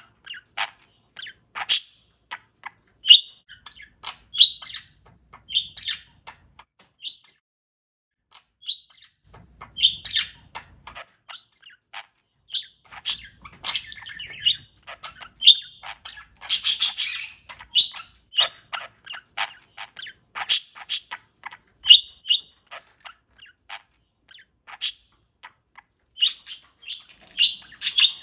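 Pet parakeet chirping: a string of short, sharp chirps with irregular gaps, and one longer, harsher squawk just past the middle.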